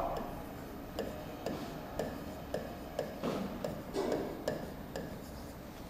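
Stylus tapping and clicking against the glass of an interactive smart-board screen during handwriting: light, sharp ticks about two a second.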